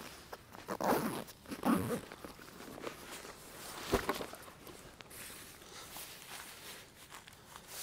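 Nylon backpack and gear being handled while packing: irregular rustling and shuffling, louder in the first couple of seconds, with one sharp knock about four seconds in.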